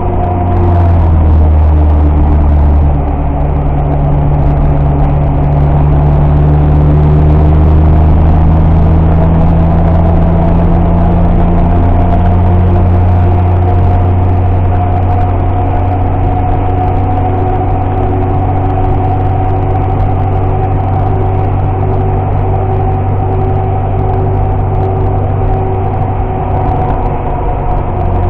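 Car engine running under load, heard from inside the cabin, with road noise underneath. The engine note drops about a second in, then climbs slowly and holds steady.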